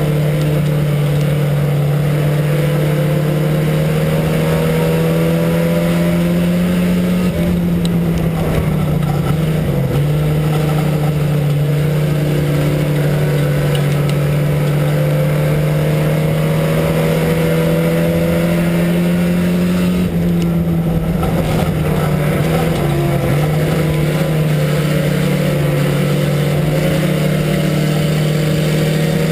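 IMCA Sport Compact race car's four-cylinder engine heard from inside the cockpit, running hard at high revs on a dirt oval. Its pitch dips briefly a few times, about a second in and again around a quarter, a third and three quarters of the way through, then climbs back as the throttle comes back on.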